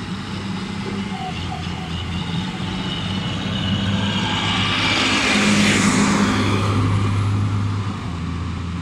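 Heavy diesel engine of a motor grader spreading a wet-mix macadam road base, running steadily and swelling to a loud peak with a rushing hiss about midway before easing off.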